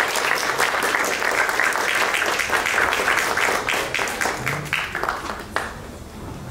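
Audience applauding, tapering off over the last two seconds with a final single clap.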